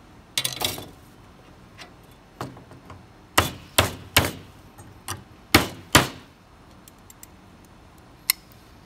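Claw hammer striking a strip of scrap sheet metal held in locking pliers: about ten irregular metallic knocks, the hardest ones coming close together in the middle, with one last tap near the end.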